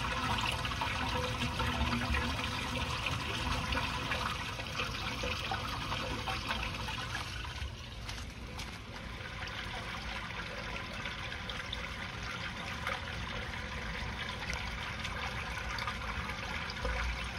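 Water running and trickling down an open PVC sewer cleanout, draining freely now that the main-line clog has been cleared. It is somewhat quieter after about 8 seconds.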